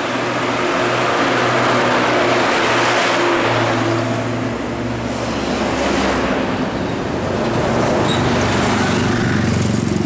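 Large coaches driving past at close range, their engines running with a steady low hum under tyre and road rush; one passes about two to three seconds in and another swells up near the end.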